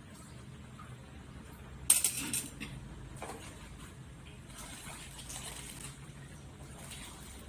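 A metal spoon clinks sharply against a metal cooking pan about two seconds in, ringing briefly, followed by a fainter knock about a second later.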